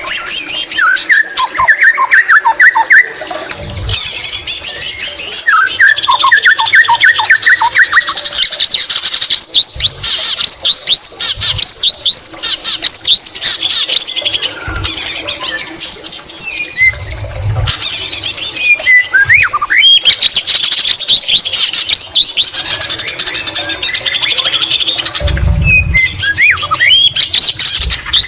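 White-rumped shama (murai batu) singing loudly and without a break: rapid chirps and fast down-sweeping whistles, with greater green leafbird (cucak ijo) phrases in its song.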